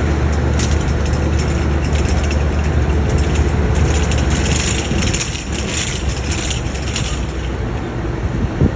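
A crane's diesel engine running steadily with a low drone while it hoists a concrete slab on chains; light metallic clicks and rattles come and go, thickest in the middle, and a sharp knock sounds near the end.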